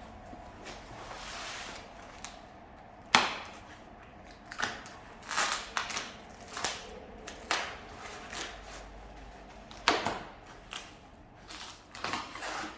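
Footsteps crunching through dry fallen leaves: short, crisp crunches at an uneven walking pace, about a second apart.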